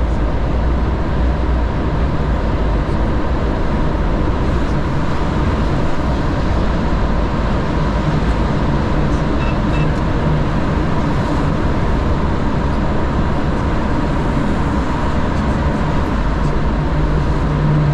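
Steady engine and road noise of a moving truck, a constant low drone with a faint steady hum.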